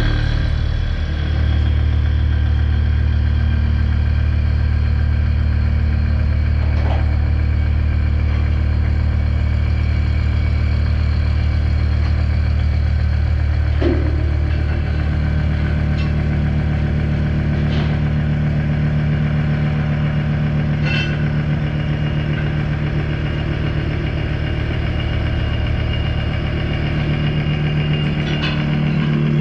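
Mazak horizontal machining center running steadily while machining AR400 steel: a loud, even machine hum, with a few faint ticks and a change in tone about halfway through.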